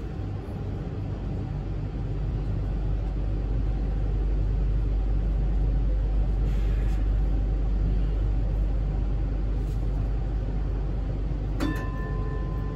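Steady low rumble of a Hong Kong Light Rail car, heard from inside, growing a little louder a few seconds in. Near the end a steady electronic beep starts.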